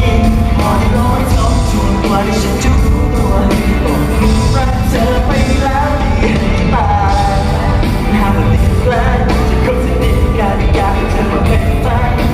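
Loud pop song with a singing voice over a steady beat.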